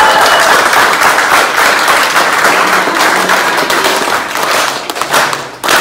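A small crowd applauding, a dense patter of hand claps that dies away near the end.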